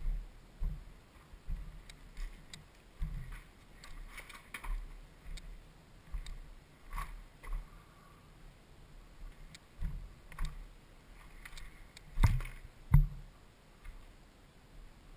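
Irregular footsteps in boots crunching over rocky debris and old boards, with small clicks and scuffs. Two heavier thumps come close together near the end.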